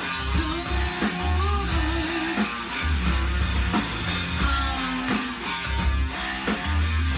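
Rock music playing from a vinyl record on a turntable: electric guitar with bending notes over bass and drums.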